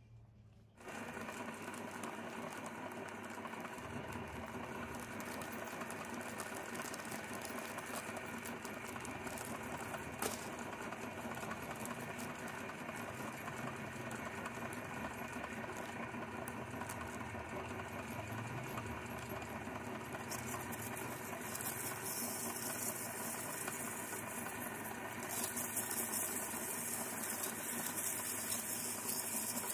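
Electric meat grinder switched on about a second in, its motor running with a steady hum as the auger turns. In the last several seconds a louder hissing crackle joins as potato chips are fed in and crushed.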